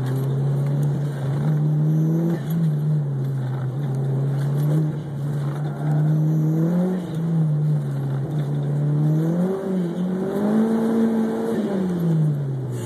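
Mitsubishi DSM's 4G63 inline-four engine heard from inside the cabin, revs rising and falling as the car accelerates and brakes through an autocross cone course. Near the end the revs climb to their highest and then drop away as the car slows.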